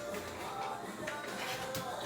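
Background music: an upbeat vlog music track with steady pitched notes.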